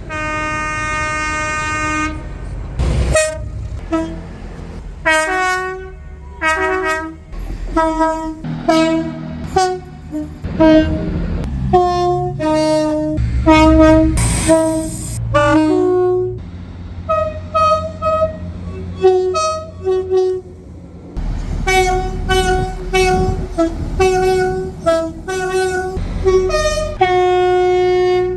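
British train horns sounding one after another: dozens of short blasts, many stepping between a high and a low note, with a long held note at the start and another near the end. Low running rumble of the trains underneath.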